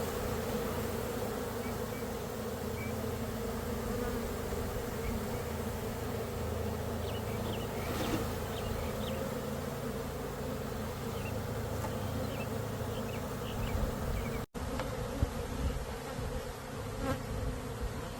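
A swarm of honeybees buzzing steadily all around, a dense crowd of bees stirred up by being shaken from their combs into a hive. The buzz drops out for an instant about two-thirds through and then carries on.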